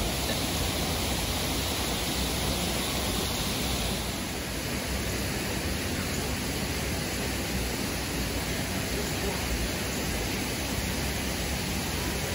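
A steady, even rushing hiss of outdoor background noise, with no distinct events.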